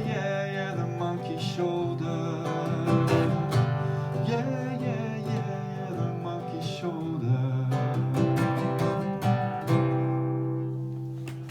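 Acoustic guitar strumming the closing bars of a folk song, then a final chord that rings out and fades near the end.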